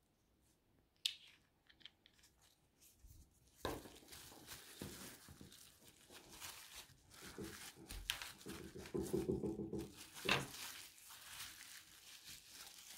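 Plastic film crinkling as it is folded over a lump of silver clay and kneaded by hand, starting a little under four seconds in and louder near two-thirds of the way through. A single click comes about a second in.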